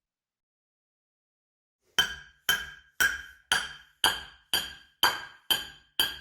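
A hard object struck over and over, giving sharp clinks with a brief ringing tone, evenly about two a second, starting about two seconds in.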